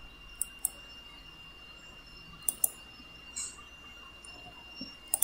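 Faint clicks of a computer mouse and keyboard: two quick clicks about half a second in, two more about two and a half seconds in, and another pair near the end, over a faint steady high whine.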